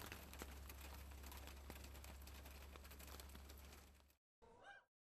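Near silence: a faint hiss with a steady low hum, cutting off to dead silence about four seconds in.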